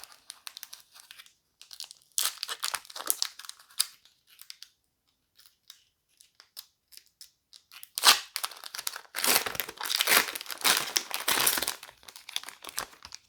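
Foil trading-card booster pack wrapper being torn open and crinkled, in two stretches of crackling: a shorter one about two seconds in and a longer, louder one in the second half.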